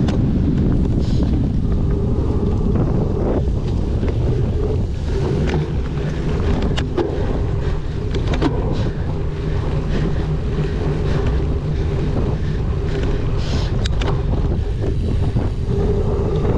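Strong wind buffeting the microphone: a steady, loud low rumble, with a few faint clicks scattered through it.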